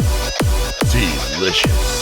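Background electronic music with a steady beat of deep kick drums, each dropping in pitch, about two and a half a second, and a wobbling bass line near the middle.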